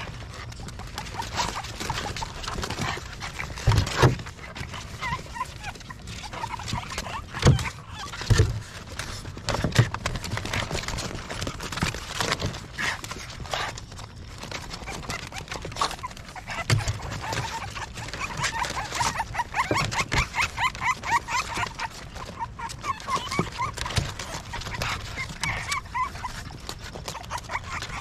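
Young French bulldog puppies whimpering and squeaking in short rapid runs of high calls, strongest in the second half, with scattered knocks and scrapes.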